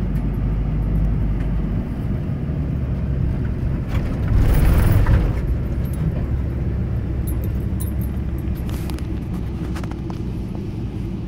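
Campervan driving slowly on a rough dirt road, heard from inside the cab: a steady low engine and tyre rumble. About four seconds in it gets louder and noisier for about a second.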